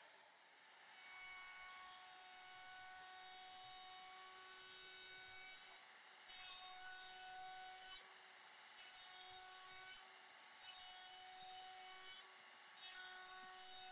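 A table-mounted router spinning a bearing-guided chamfer bit, cutting a bevel along the edge of an MDF panel. The motor's steady whine carries through, with rasping cutting noise coming and going in about five passes.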